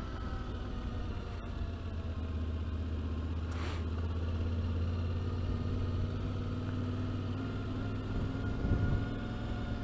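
Yamaha Ténéré 700's stock-exhaust 689 cc parallel-twin engine running steadily at a near-constant engine speed. A brief rushing noise comes through about three and a half seconds in.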